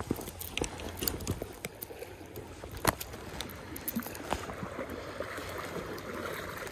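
Shallow river water flowing and lapping, with scattered small clicks and taps as a landed trout is unhooked by hand; one sharper click about three seconds in.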